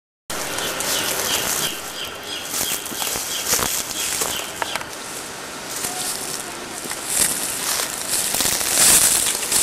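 Outdoor ambience in a pine wood: a steady hiss with frequent crackling and rustling of dry pine needles and twigs underfoot, starting suddenly and growing louder near the end.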